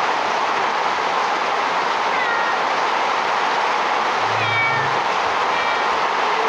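Steady hiss of rain with a small kitten giving a few short, high meows, the clearest about four and a half seconds in.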